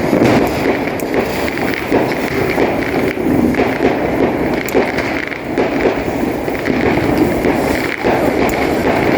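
A cheap $1 firework burning with a steady, dense crackling hiss, with a few small pops and no single big bang.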